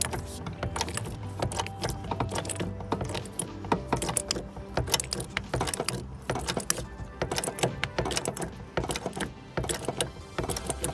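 Background music over a run of sharp metallic clicks and clinks from a hydraulic bottle jack as its handle is pumped to raise the ram.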